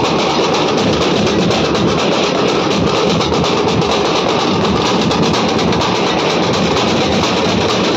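A Nashik dhol ensemble playing: many large barrel dhol drums beaten with sticks in a loud, fast, dense rhythm that keeps going without a break.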